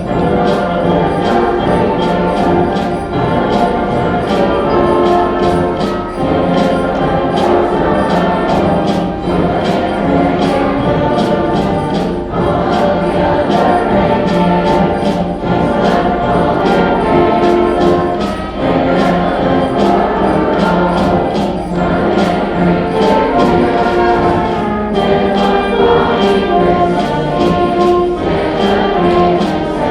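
A high school band playing a holiday piece: held wind chords over a steady percussion beat.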